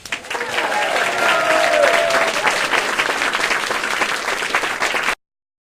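Crowd applause: dense clapping that starts suddenly and cuts off abruptly about five seconds in, with a few faint cheering voices in the first two seconds.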